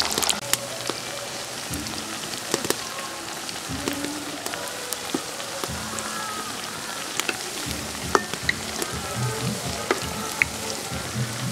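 Cabbage and prawn pakoras deep-frying in hot oil in a black iron karahi: a steady sizzle with scattered sharp clicks as the oil spatters and a metal spatula moves among the fritters.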